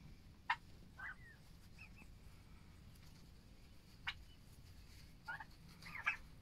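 Young turkeys calling: a handful of short, high, scattered chirps and yelps, with sharp ones about half a second and four seconds in and a little cluster near the end.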